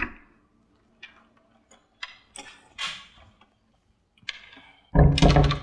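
Scattered light clicks and knocks of a door being opened and someone moving about, then a loud pitched sound effect lasting about half a second near the end.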